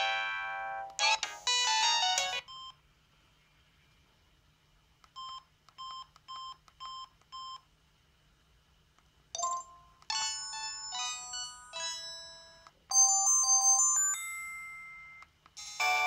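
A Samsung SGH-C520 flip phone's loudspeaker playing short synthesized ringtone and message-tone previews from its Yamaha SMAF chip, one melody after another, each cut off as the next is selected. In a quiet stretch in the middle come five short, evenly spaced beeps.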